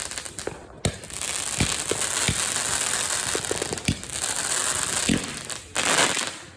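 Aerosol spray can of mint-scented insect repellent hissing in long bursts, with two short breaks between sprays.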